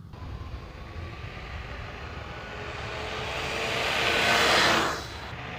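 BlueTran Lightning dual-motor electric scooter riding past: motor whine and tyre noise grow louder as it approaches, peak about four and a half seconds in, then drop off quickly as it passes.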